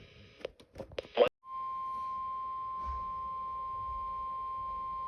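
NOAA Weather Radio warning alarm tone: a single steady 1050 Hz tone that starts about a second and a half in and holds at an even level. It signals that an emergency alert broadcast follows. A few brief clicks come just before it.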